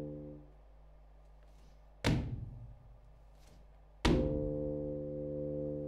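Bassoon and body percussion: a held low bassoon note fades out in the first half-second, then two sharp foot stomps on a wooden stomp board about two seconds apart, the second joined by another long held bassoon note.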